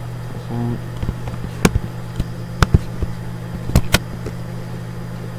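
Computer mouse clicking a handful of times, sharp single clicks spaced about a second apart, two in quick succession near the end, over a steady low electrical hum.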